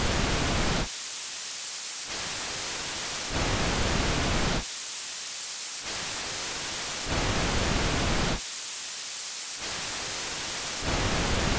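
Synthesised noise played back, switching several times between short bursts of white noise, an even hiss across all pitches, and longer stretches of blue noise, a thinner hiss weighted toward the high frequencies with little bass.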